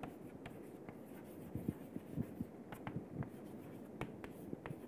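Chalk writing on a chalkboard: faint, irregular taps and short scrapes as the chalk forms letters.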